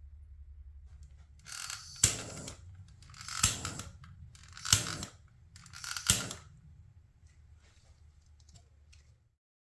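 Four sharp clicks about a second and a half apart, each preceded by a short rustle, over a low hum that stops shortly before the end.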